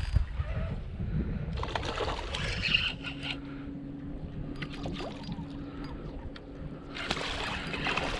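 Small boat motor settling into a steady hum about three seconds in, over a low rumble and sloshing water; a burst of hiss comes near the end.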